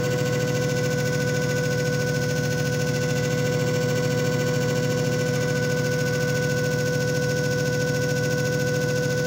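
JFJ Easy Pro disc repair machine running a repair cycle: its motor gives a steady hum with a constant whine.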